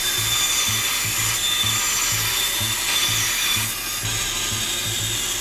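Bandsaw blade cutting steadily through a clear plastic sheet: a bright, even rasping noise with a thin high whine running through it.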